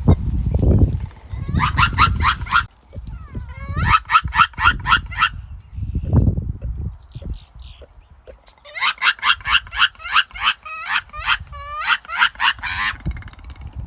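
Geese honking in three rapid bouts of repeated calls, about seven honks a second, the longest bout near the end. Low rumbling knocks come near the start and about six seconds in.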